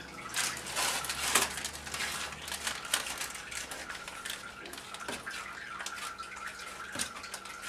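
Back of a wooden spoon smearing melted chocolate over a slice in a paper-lined baking tin: soft wet scraping strokes, with crinkles of the baking paper.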